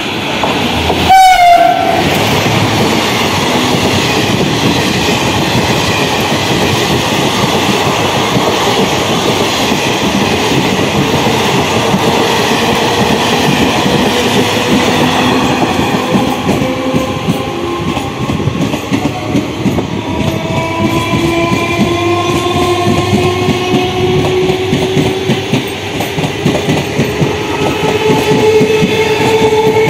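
Indian Railways WAG5 electric locomotive sounding a short horn blast about a second in as it approaches, followed by its passenger coaches rolling past with steady clickety-clack over the rail joints. In the second half a whine slowly rises in pitch.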